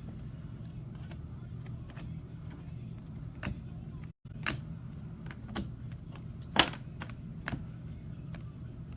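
Steady low hum with scattered light clicks and taps, one louder click about six and a half seconds in, and a brief dropout just after four seconds.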